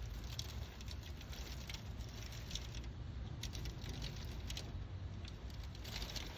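Hail falling: scattered, irregular sharp ticks of hailstones striking hard surfaces over a steady rushing noise.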